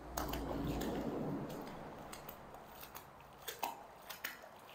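Wet magnet-fishing rope being hauled in by hand out of the water: a stretch of splashing and dripping in the first second and a half, then a few sharp, wet clicking and squelching handling sounds.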